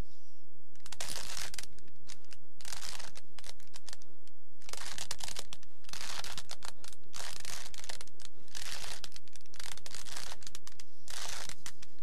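A 3×3 Rubik's Cube being turned quickly by hand: rapid clattering plastic clicks of the layers, in about eight short bursts of turns, each under a second, with brief pauses between.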